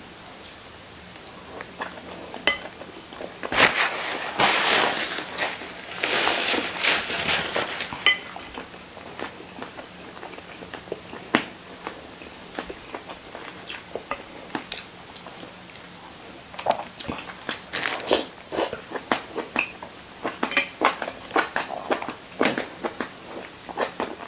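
A person eating soy-braised salmon head from a bowl: a few loud slurps about four to eight seconds in, then wet chewing and lip-smacking clicks with the occasional clink of cutlery on the bowl.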